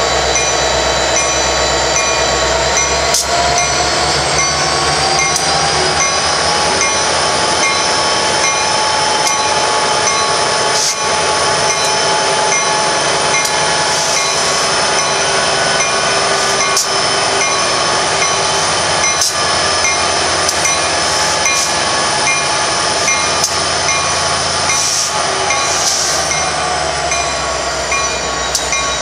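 Union Pacific and Norfolk Southern diesel-electric freight locomotives running loud and steady as they pull a manifest train out of a siding. Their whine rises in pitch a few seconds in. Occasional sharp clicks are heard.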